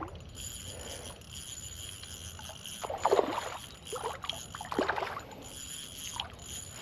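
Water splashing, with a few short splashes about three, four and five seconds in, as a small smallmouth bass is reeled toward the bank on an ultralight spinning reel.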